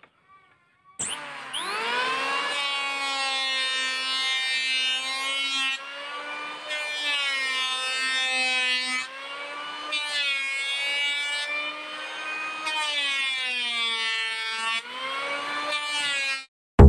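Electric hand planer switched on about a second in, its motor whine rising quickly to a steady pitch, then sagging slightly and recovering several times as the blades shave teak boards. It stops abruptly just before the end.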